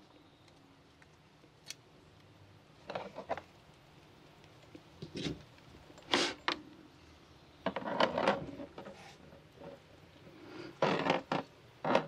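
Clear 1/4-inch plastic hose being pushed by hand onto a barbed fitting: several short bursts of plastic handling noise, rubbing and clicking.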